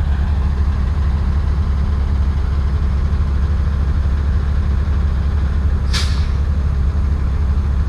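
Vehicle engine idling with a steady low rumble; a short, sharp hiss about six seconds in.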